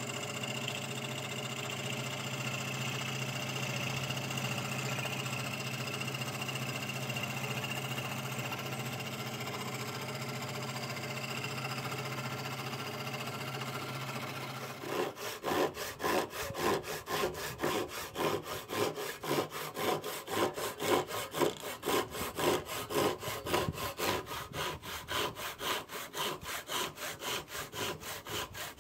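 Electric scroll saw running steadily as a small piece of wood is fed through its blade. About halfway through this gives way to an Irwin handsaw cutting a wooden piece clamped in a vise, in even, rhythmic rasping strokes.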